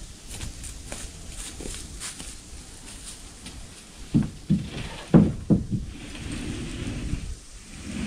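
Footsteps crunching on gravel and dry leaves as light clicks, then a few heavy thuds about four to five and a half seconds in as a person climbs wooden steps carrying a large wooden sheet, followed by a rustling.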